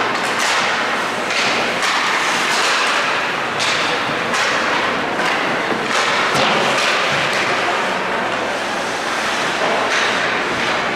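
Ice hockey play on an indoor rink: skate blades scraping and carving the ice, and sticks and puck knocking, as repeated sharp scrapes over a steady echoing din.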